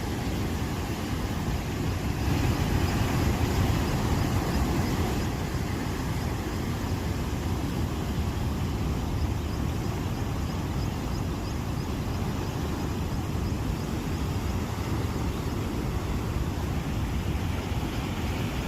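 Waterfall at a dam spillway: a heavy flow of water pouring over and crashing below in a steady rush, swelling slightly a couple of seconds in.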